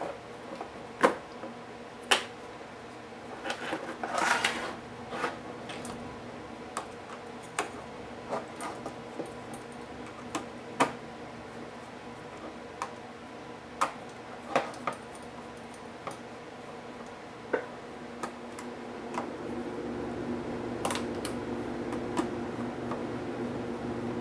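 Scattered clicks and taps of small laptop parts and tools being handled during disassembly, over a steady hum that grows louder about nineteen seconds in.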